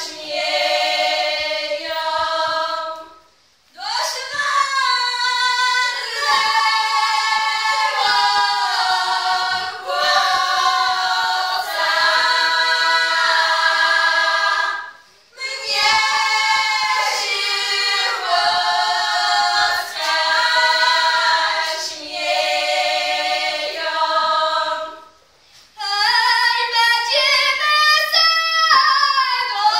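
A small group of women singing a cappella in Polish highland (Goral) folk style, several high voices together in loud, sustained phrases. Three short breaks divide the singing into four phrases.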